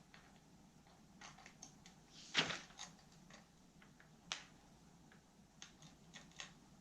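Scattered light clicks and taps of hard objects being handled, with a louder knock about two and a half seconds in and a sharp click a couple of seconds later.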